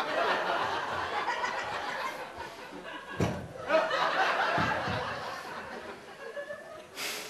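Audience laughing in two waves, with a break and a single thump just after three seconds.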